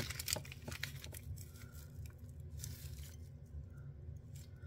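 Faint rustling and crinkling of synthetic filler flash and its plastic bag being handled, with a few sharp clicks near the start.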